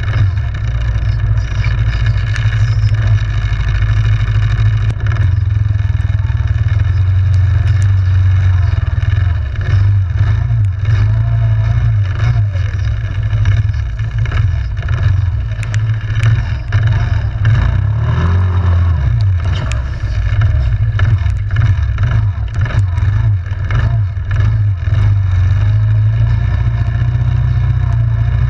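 Yamaha Grizzly 700 ATV engine running under way with a steady low drone, its pitch swinging up and down briefly about 18 seconds in. Frequent short clicks and knocks come from the machine riding over rough ground.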